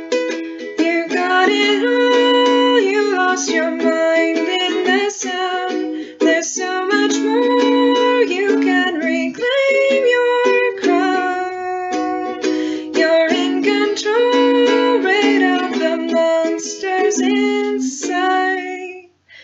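Ukulele strummed and picked as a song's accompaniment, with a short break in the playing near the end.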